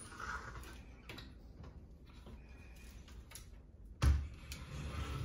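Louvered bifold closet door being opened by hand: light clicks and rattles, then a sharp thump about four seconds in.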